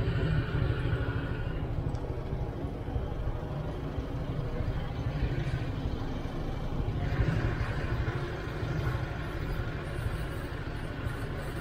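Honda Click 125i scooter's single-cylinder engine running steadily with a low rumble.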